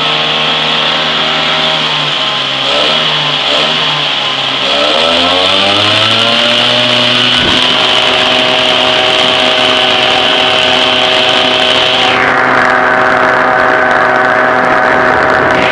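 Homemade turbocharger-based turbojet spinning up at start-up, with air blown into its intake: a steady whine dips, then rises in pitch over a few seconds and settles into a steady high running note. A hissing stops abruptly about twelve seconds in.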